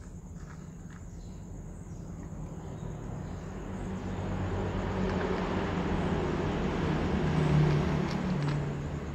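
A motor vehicle passing by: a low rumble with a steady engine hum swells from about three seconds in, is loudest near the end, then fades.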